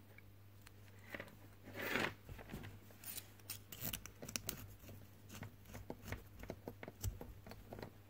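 Faint, irregular small metallic clicks and scrapes as the knurled metal shell of a quarter-inch TRS jack plug is screwed onto the plug body by hand, the clicks coming thicker from about three seconds in.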